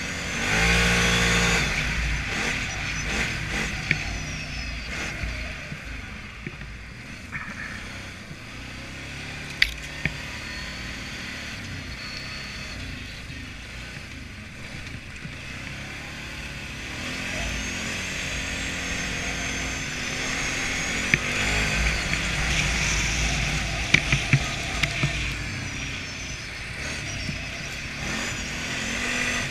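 ATV engine running as the quad drives over snow: it revs up hard about a second in, eases off to a lower steady run, then climbs in pitch again about two thirds of the way through. A few sharp knocks stand out over the engine.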